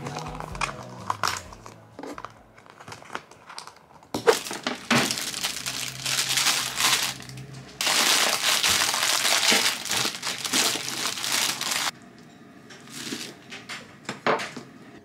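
Packaging crinkling as it is handled, in loud stretches that start and stop abruptly, followed by a few light taps near the end.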